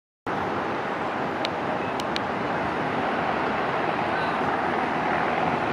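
Steady, distant drone of a 1978 Cessna 172N's four-cylinder piston engine at takeoff power during its takeoff roll, with three faint clicks about one and a half to two seconds in.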